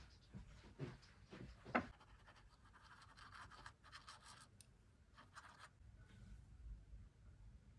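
Faint scratchy strokes of a paintbrush on a stretched canvas as paint is dabbed on, with a few light taps in the first two seconds; the strokes stop about six seconds in.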